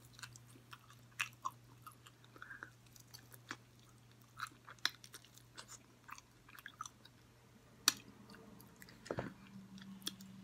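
Close-up eating sounds of a person chewing sauce-covered chicken wings: wet chewing with irregular sharp lip smacks and mouth clicks.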